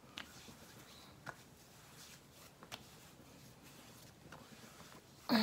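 Quiet room tone with four faint clicks and taps, typical of skincare bottles being handled, then one short, loud pitched sound near the end.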